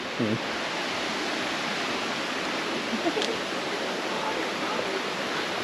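Steady, unbroken rush of water, with faint voices in the background.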